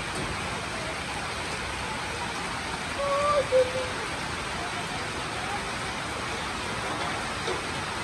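Steady rain falling, an even hiss. About three seconds in, a brief pitched call rises above it for under a second.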